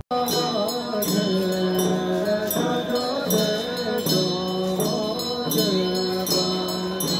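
Tibetan Buddhist monks chanting together in a low, steady drone, with regular strikes on hand-held drums and a steady high ringing.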